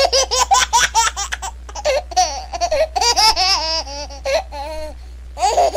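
High-pitched, sped-up comic laughter sound effect in quick rapid peals over a low steady drone, as used in a channel's intro jingle.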